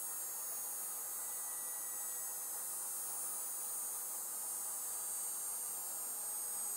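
Model 314 vertical gyroscope rotor coasting down after power-off: a steady high-pitched whine of several tones that fall slowly in pitch, over a faint hiss.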